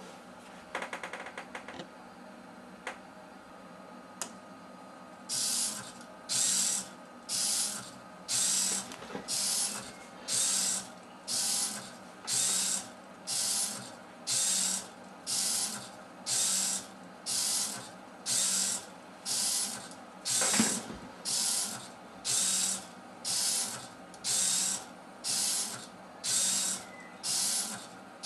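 Small hobby servo motors in a Meccano robot arm whirring in short, high-pitched bursts about one a second, each half a second long, as the arm moves step by step under microcontroller control. There is a brief rattle of clicks about a second in, before the regular bursts begin about five seconds in.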